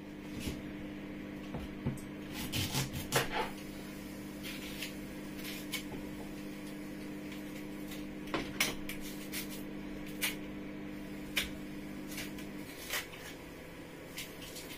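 Knife cutting and peeling plantains on a wooden chopping board: scattered knocks and taps, a quick cluster of them a few seconds in. Under them runs a steady low hum that stops near the end.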